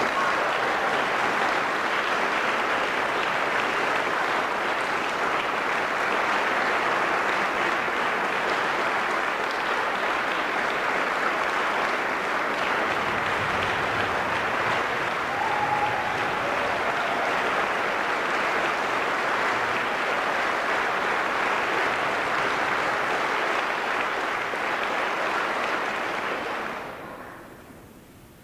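Concert audience applauding, a dense, steady clapping that dies away near the end.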